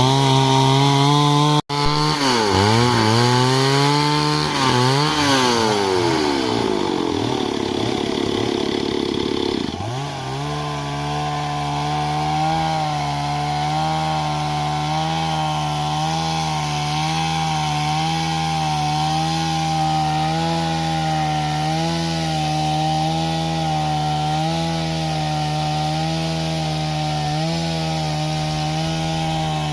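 Stihl MS 382 two-stroke chainsaw revving up and down for about ten seconds, then running steadily at high speed under load as it cuts through wood. There is a brief break in the sound about two seconds in.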